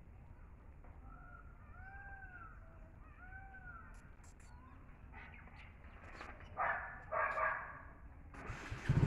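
Cats scuffling and calling: three short meows that rise and fall, then two louder, harsher cries a few seconds later. A motorcycle engine starts up right at the end.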